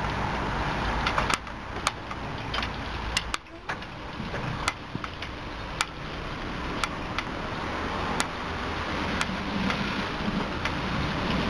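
Automatic car wash running: rotating brushes and water spray make a steady rushing hiss, with sharp ticks about once a second.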